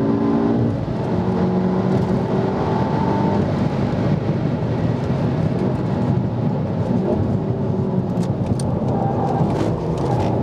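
Manual MK7 Volkswagen Golf R's turbocharged 2.0-litre four-cylinder engine running hard under load, heard from inside the cabin, with a short break about a second in as a gear change is made.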